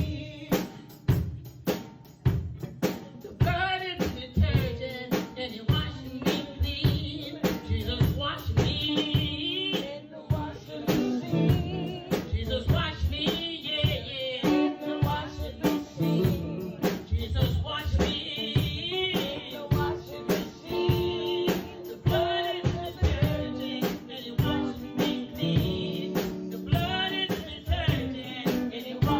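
Church singing with a drum kit keeping a steady beat, snare and bass drum hits under wavering sung lines.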